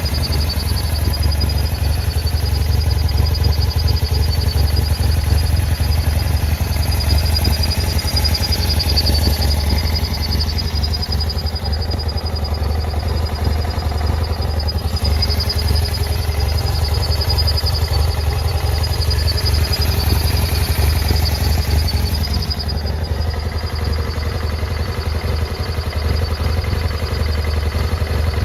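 BMW F800GS parallel-twin engine idling very roughly. One idle vacuum hose is torn and the other is broken off the air box spigot, so the engine is getting air through them.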